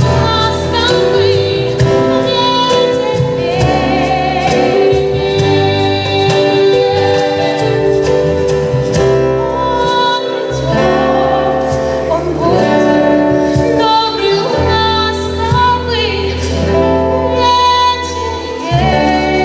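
A female vocalist singing a slow song over instrumental accompaniment.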